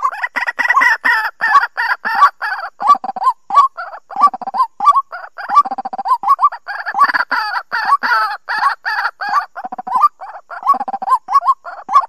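White-breasted waterhen calling: a loud, rapid run of repeated calls, several a second, going on with only brief gaps.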